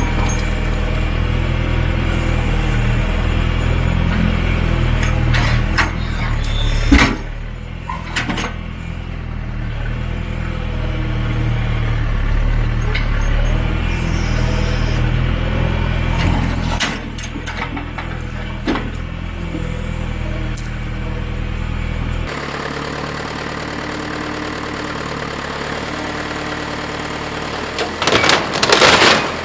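John Deere 410 backhoe's diesel engine running at working throttle, its note shifting several times and dropping abruptly about three-quarters of the way through. Sharp knocks and cracks come about a quarter of the way in and again in a burst near the end.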